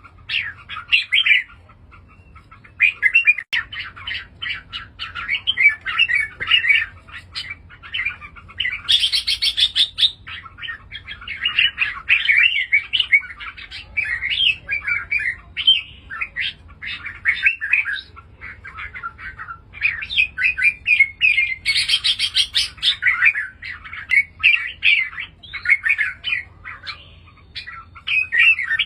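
Red-whiskered bulbul singing: a run of quick, chirping song phrases with a short pause about two seconds in, and two brighter, higher-pitched bursts partway through.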